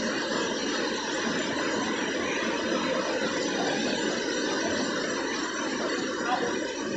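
Steady rushing noise of a waterfall pouring into its pool, even and unbroken throughout.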